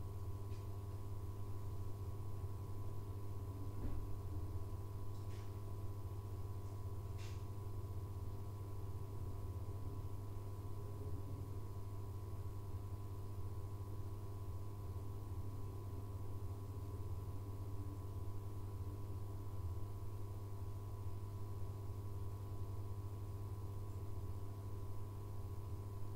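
Abukuma Express AB900 series electric train standing still, its onboard electrical equipment giving a steady low hum with a few fixed higher tones. Two faint ticks come about five and seven seconds in.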